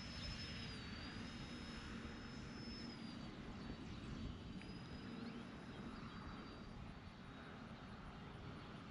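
Distant whine of the E-flite A-10's twin 64 mm electric ducted fans as the RC jet flies far off: a thin high tone that dips and rises slightly in pitch and slowly fades, over a steady low rumble.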